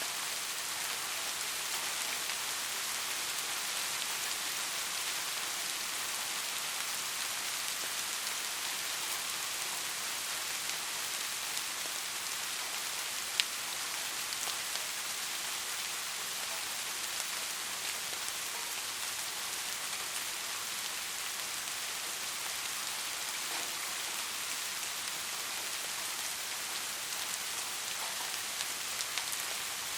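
Steady rain falling, a dense even hiss with scattered drops ticking, and one sharper tick about thirteen seconds in. No thunder.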